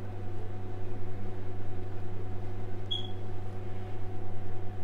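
Steady low electrical hum with fainter higher overtones, like an appliance or mains buzz in a small room. A brief high-pitched chirp sounds about three seconds in.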